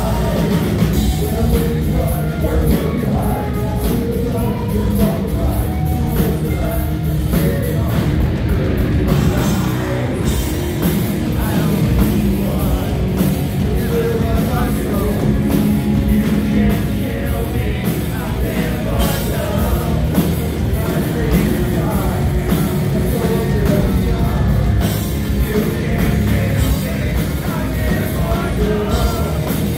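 Live rock band playing a song: a lead singer's vocals over electric guitar, bass guitar and a drum kit, loud and unbroken, heard from the crowd.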